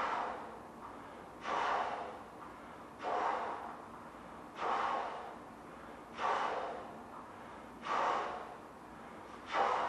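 A person inflating a large balloon by mouth: a rush of breath about every second and a half, each starting suddenly and fading away.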